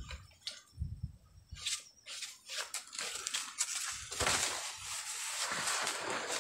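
Irregular rustling and crunching of leaves and twigs, with a couple of soft low thumps.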